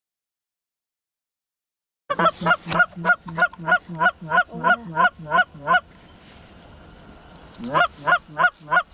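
Dead silence for about two seconds, then rapid goose honking, about four or five honks a second. The honking breaks off for a couple of seconds and starts again near the end.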